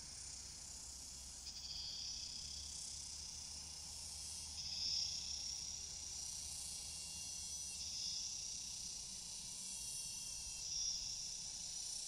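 A chorus of forest insects buzzing high and shrill, with new bouts swelling in every few seconds. It is loudest about five seconds in and again near the end.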